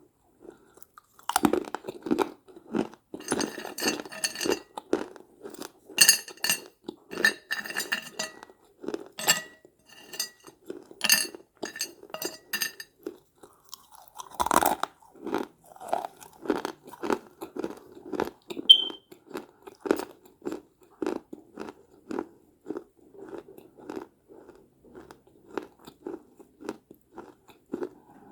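Someone biting and chewing crunchy baked clay (mini clay pots). Sharp crackling crunches start about a second in, another hard bite comes about halfway, then steady rhythmic chewing follows.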